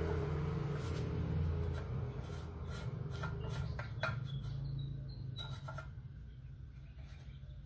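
A bottom bracket cup being threaded by hand into a bicycle frame's bottom bracket shell: scattered small clicks and scrapes of metal on metal, over a steady low hum.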